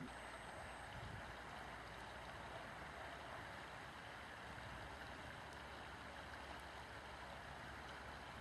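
Faint, steady hiss of river ambience with a low rumble underneath; no calls or splashes stand out.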